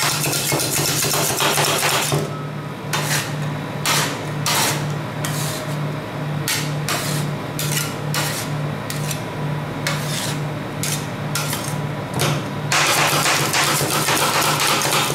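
Two metal spatulas chopping and scraping ice cream mix and cake pieces on a frozen metal cold plate. The first two seconds are rapid tapping, then come scattered single strikes and scrapes, and about three seconds from the end the rapid chopping starts again. A steady low hum runs underneath.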